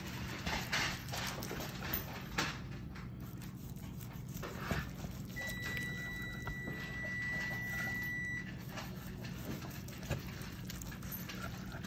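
Large chef's knife slicing a cooked bone-in ribeye roast on a wooden cutting board: soft sawing strokes through the meat and crust, with a few sharp knocks of the blade against the board. A steady high electronic beep sounds for about three seconds in the middle.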